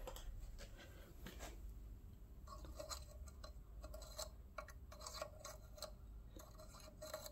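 Faint, irregular clicking and scraping of a small metal pick worked inside a bolt hole in a Briggs & Stratton engine's crankcase, clearing gunk out of the hole. The clicks mostly come a couple of seconds in.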